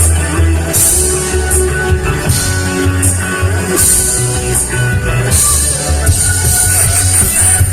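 A rock band playing live: electric guitar, bass and drum kit, with the cymbals coming and going over the beat.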